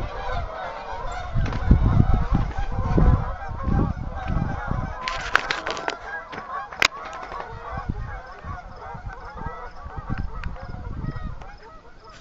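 A large flock of giant Canada geese honking as it flies over, many calls overlapping, growing fainter toward the end. Low thumps on the microphone in the first few seconds and a few sharp clicks around the middle.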